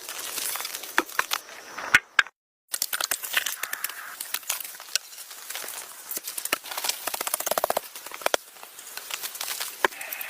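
Dry material being handled, crackling and rustling with many sharp snaps and clicks. The sound drops out completely for about half a second just after two seconds in.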